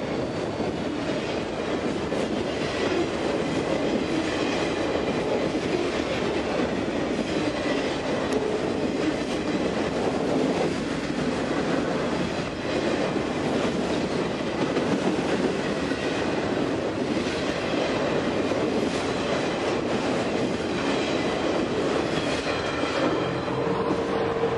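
A freight train of autorack cars rolling past: steel wheels rumbling and clacking over the rail joints, with the cars rattling. A steady tone comes in near the end as the last car goes by.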